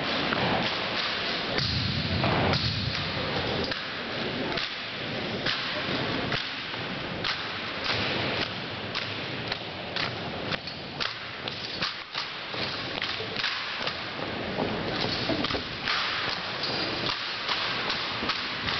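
Drill team's rifles being slapped and handled and their boots stamping on a hardwood gym floor: many sharp smacks and thumps at an irregular rhythm.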